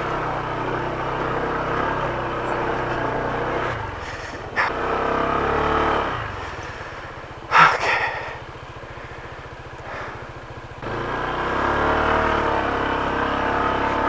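Honda ADV scooter's single-cylinder engine working up a steep rocky climb, the revs rising and falling with the throttle. Two sharp knocks come near the middle, the second the loudest, then the engine drops to a low, even run for a few seconds before picking up again.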